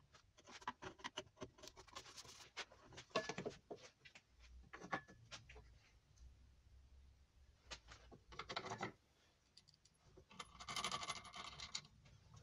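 Faint clicks and scraping as metal tools and hardware are handled against a plywood board, with a longer scraping rub near the end as the plywood is slid into place on the metal drill-press table.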